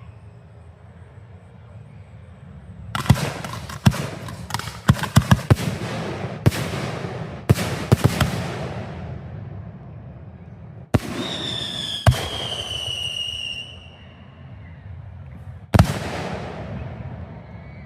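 Fireworks going off: after a few quiet seconds, a quick run of sharp bangs with crackling tails, then a whistling shell whose whistle slowly falls in pitch, broken by another bang, and one more loud bang near the end that crackles away.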